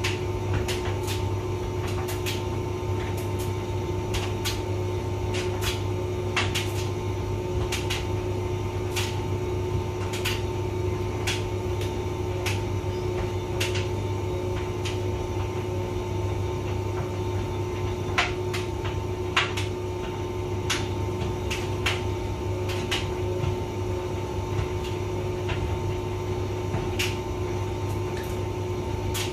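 Hotpoint vented tumble dryer running: a steady hum with a low drone and two steady tones. Irregular light clicks and taps, about one every second or two, come through the hum.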